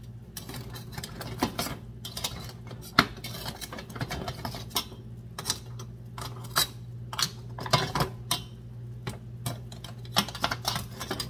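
Metal tongs clinking against a stainless steel pan and clam shells as cooked, opened clams are picked out of boiling water: many sharp, irregular clicks over a steady low hum.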